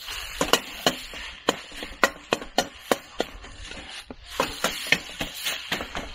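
A metal utensil clacking against an iron wok again and again, about two or three strikes a second, while stir-frying rice and egg, with a steady sizzle underneath. There is a short pause about four seconds in.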